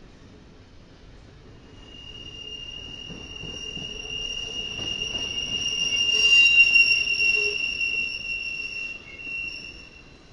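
Wheels of a passing intermodal freight train of empty double-stack well cars squealing on the rails: a high, steady screech that swells from about two seconds in, is loudest past the middle, and fades near the end, over the rumble of the cars rolling by.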